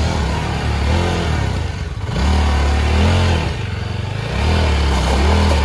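Motorcycle engine revving hard under load in about four rising and falling surges as the bike powers up a steep, rocky off-road climb.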